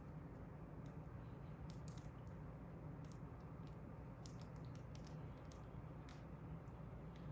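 Quiet room tone with a steady low hum and scattered faint clicks.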